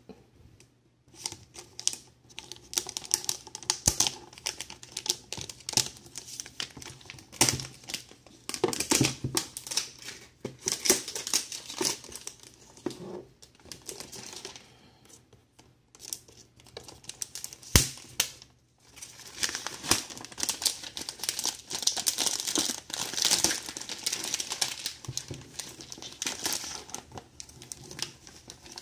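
Clear plastic shrink wrap being peeled and torn off a cardboard figure box: crinkling and crackling that comes and goes, with short pauses. A single sharp knock about two-thirds of the way through.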